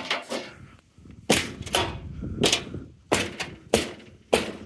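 Six sharp knocks, spaced half a second to two-thirds of a second apart, from striking a stuck part of a Beko washing machine that is being forced to snap off.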